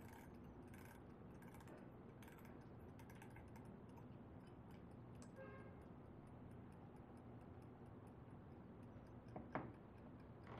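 Faint ticking and clicking as a small round metal object is turned in the hands, with one sharper click about a second before the end, over a low room hum.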